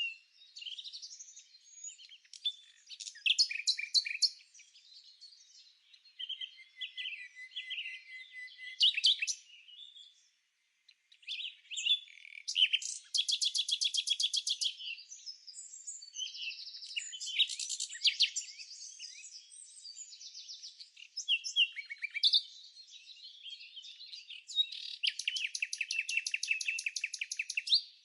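Songbirds singing: a mix of varied chirps and fast trills of rapidly repeated notes, with a short lull about ten seconds in.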